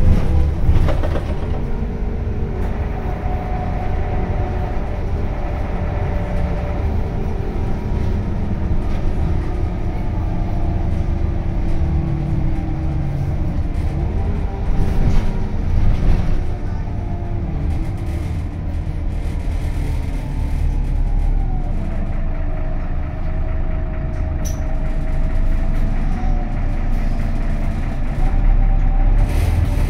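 Inside an Irisbus Crealis city bus under way: steady engine and road rumble, with a faint whine that slowly rises and falls in pitch. There are a couple of louder jolts about halfway through and near the end.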